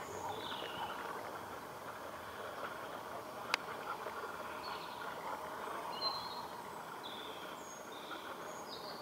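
Steady outdoor background noise with small birds chirping now and then, and one sharp click about three and a half seconds in.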